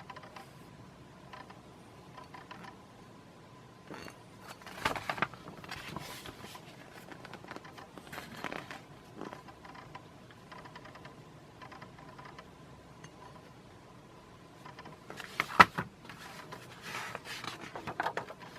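Paper rustling and scraping as the pages of a brochure are handled and turned, in a few short bursts with the sharpest about three quarters of the way through, over a faint steady hum.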